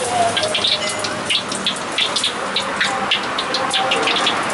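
Hot cooking oil sizzling and crackling in a wok, a dense run of small irregular pops.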